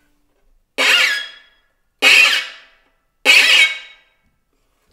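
Violin bowed hard near the bridge while the left hand makes a fast up-and-down natural harmonic glissando: three explosive, aggressive bursts a little over a second apart, each dying away quickly, with the harmonics flicking up and down in pitch.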